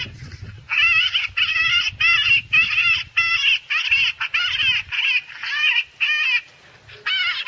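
Electronic predator call looping a distress cry: short, high, wavering squeals repeated about twice a second, with a brief pause near the end.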